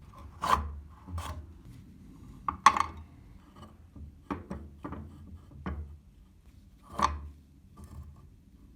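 Hands handling and working the parts of an old metal cheese/walnut grater: a string of irregular scrapes and knocks, the sharpest about half a second in, near the three-second mark, and again about seven seconds in.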